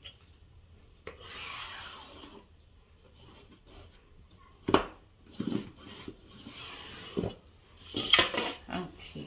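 A line being drawn onto cloth along a metal ruler: a rubbing scrape about a second in, with fainter scrapes after, then several sharp knocks and a cluster of knocks and scrapes near the end as the ruler is shifted on the table.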